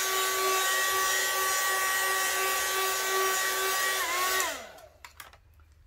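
Mini hot air gun blowing steadily, a rush of air with a fan whine, popping bubbles in freshly poured epoxy resin. About four seconds in it is switched off and the whine falls in pitch as it winds down, followed by a few light knocks.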